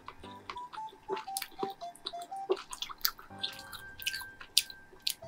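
Close-up mukbang eating sounds: a person chewing a mouthful of malatang, with irregular short mouth clicks and smacks. A faint background music melody of single stepped notes plays underneath.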